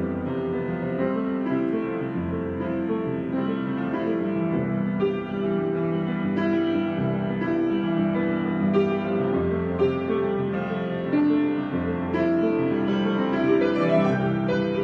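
Solo piano improvisation: sustained chords with a melody of struck notes over them.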